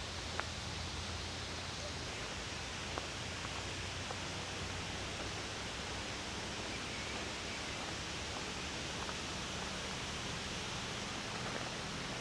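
Steady outdoor background noise, an even hiss with no distinct source, with a couple of faint clicks about half a second and three seconds in.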